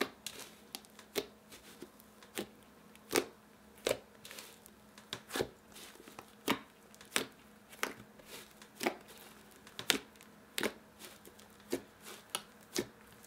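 Thick white butter slime, made of glue, shaving foam and soft clay, being kneaded and squeezed by hand, giving sharp wet clicks and pops at an uneven rate of about one or two a second.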